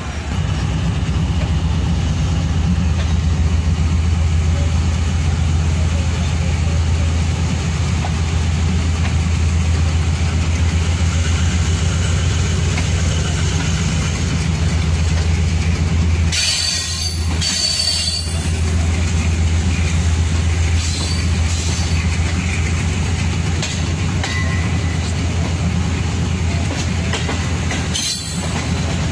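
Passenger train coach running along the rails, heard from an open coach window: a steady low drone under the noise of the wheels on the track. Two short, harsher bursts of wheel and rail noise come a little past halfway and again near the end.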